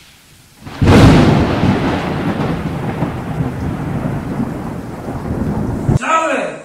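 Thunderclap, most likely an added sound effect. A sudden loud crack about a second in is followed by heavy rumbling that lasts about five seconds and then cuts off abruptly.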